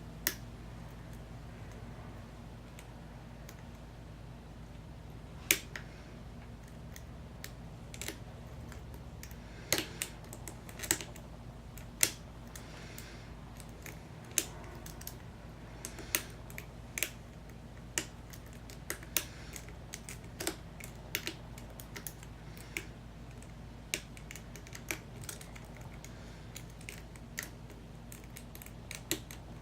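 Lock pick and tension wrench working the pin stack of an American 5100 series padlock: small, irregular metallic clicks and ticks, scattered through the whole stretch with no steady rhythm, over a faint steady low hum.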